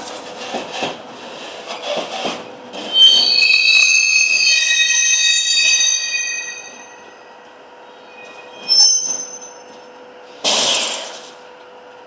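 A rail retarder in a hump yard clamping the wheels of a rolling freight wagon. Wheels clatter over the track at first, then a loud, high squeal of several steady tones sounds for about three seconds and fades out. A short squeal follows, then a brief burst of noise near the end.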